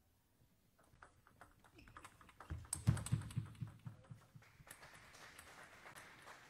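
Table tennis rally: the celluloid-type ball clicks sharply off the bats and the table at an irregular pace. About halfway through comes a short burst of louder, quick knocks as the point ends, followed by a soft, even hall murmur.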